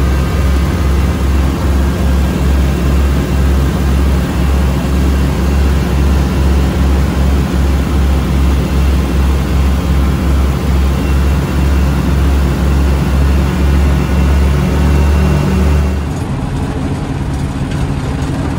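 The two engines of a homebuilt light aircraft run with a loud, steady, pulsing drone, heard from inside the cockpit as the plane rolls along a grass strip after landing. About sixteen seconds in, the engines drop to a quieter, lower run as they are throttled back for taxiing.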